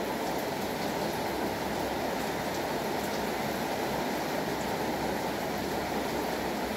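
Steady rain falling: a dense, even rush of water with faint scattered drop ticks, unchanging throughout.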